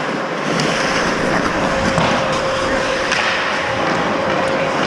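Ice hockey play on the rink: skate blades scraping the ice under a steady hiss, with a constant hum and a few faint stick or puck clicks.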